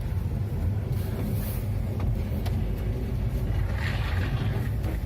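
Lada Vesta driving over small bumps, heard from inside the cabin: a steady low road and engine rumble with a brief squeak about four seconds in. The squeak comes from the rubber suspension bushings, which the owner says have apparently started squeaking.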